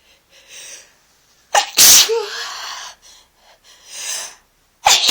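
A person with a head cold sneezing: a few soft breaths, then a hard sneeze about a second and a half in with a short voiced tail. A rising inhale follows, and a second sneeze starts near the end.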